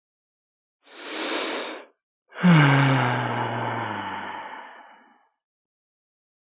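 A person's sigh: a breathy intake of about a second, then a long voiced exhale that falls in pitch and fades away over nearly three seconds.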